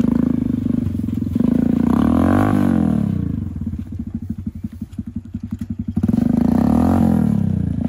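Homemade buggy's 110cc gasoline engine revving up and down twice, with a rough idle in between, as the buggy is pushed from behind because the engine alone does not get it up the slope.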